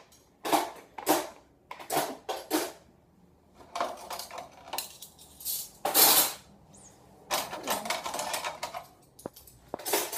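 Dishes and cutlery clattering in a kitchen sink as they are washed, in a run of short, separate clinks and clatters.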